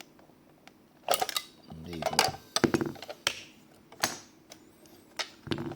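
Irregular plastic clicks and knocks from hands handling a Taranis X9 Lite S radio-control transmitter, the busiest stretch about a second in.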